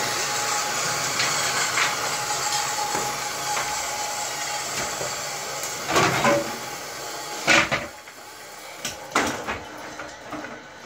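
Table saw running down after being switched off, its whir slowly fading over about eight seconds. From about six seconds in, several sharp wooden knocks and clatters as cut pressure-treated slats are gathered and stood on end on the saw table.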